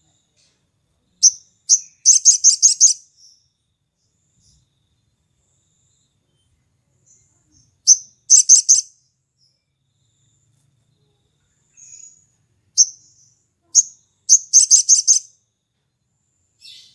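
Male olive-backed sunbird singing three high, sharp phrases, each of one or two single notes running into a fast trill of about eight notes a second, with a few faint single notes between phrases.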